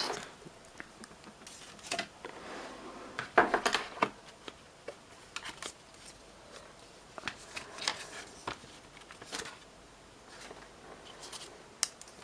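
Packaging being handled as accessories are taken out of a box: irregular rustling and crinkling of paper and plastic with small knocks, loudest about three and a half seconds in.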